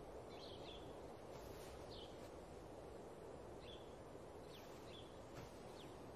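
Faint outdoor ambience: a low steady hiss with short, high bird chirps scattered through it every second or so.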